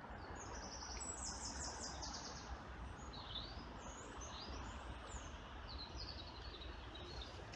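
Small birds chirping: a fast run of high repeated notes between one and two seconds in, then scattered short high calls, over a steady low background rumble.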